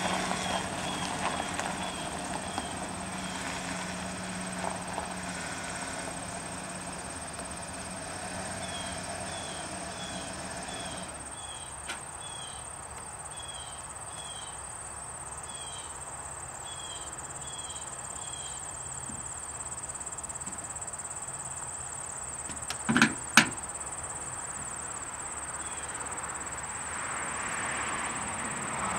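Pickup truck engine idling, then shut off about a third of the way in. After that comes quiet outdoor background with a faint, repeating high chirp, then two sharp clunks close together about three-quarters of the way in as the truck's door is unlatched.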